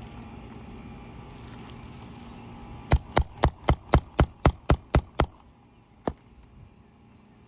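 A quick run of about ten sharp hammer blows, about four a second, each with a metallic ring, then one more blow a second later.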